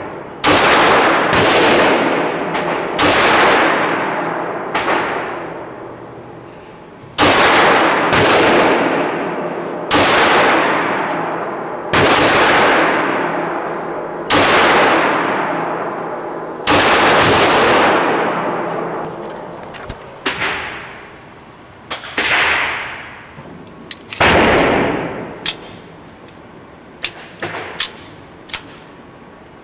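A 9mm semi-automatic pistol fired in a slow string of about a dozen shots, one every second or two, each report ringing out long in the indoor range. Near the end the big reports stop and only a few shorter, fainter sharp cracks and clicks follow.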